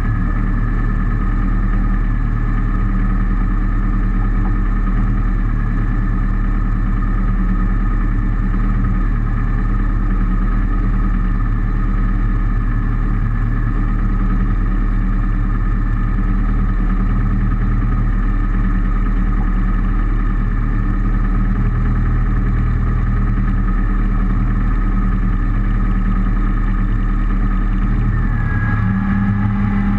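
Rally car engine idling steadily, close up, with its note stepping up slightly near the end.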